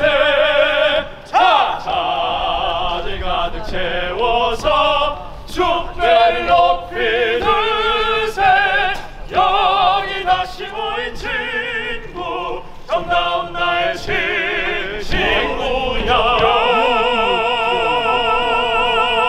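A group of male voices singing together in an operatic classical-crossover style with wide vibrato. Near the end they settle into one long held note.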